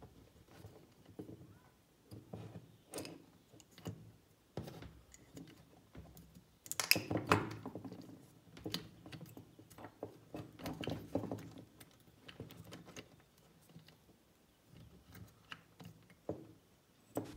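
Small clicks, taps and scrapes of plastic on plastic and metal as a seal ring is worked onto the piston head of a 12 V tire-inflator air compressor, with a denser, louder run of clicks about seven seconds in. The rings are being refitted in their proper place; their bad seating is what kept the pump from putting out air.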